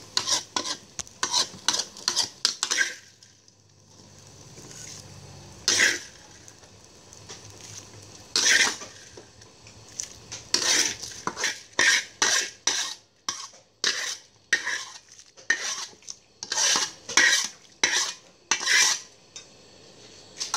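A cooking utensil scraping and clattering against a pot as food is stirred, in quick repeated strokes. After about three seconds the strokes thin out to one or two for several seconds, then come back in a steady run of about two a second.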